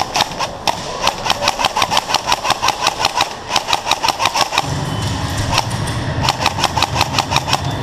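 Airsoft guns firing in rapid strings of sharp shots, several a second. About two-thirds of the way in, a steady low rumble starts underneath the shots.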